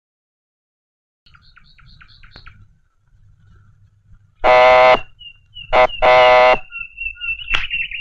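Telephone ringing: two loud buzzing rings, each about half a second long and about a second and a half apart, with a thin high wavering tone running on after them.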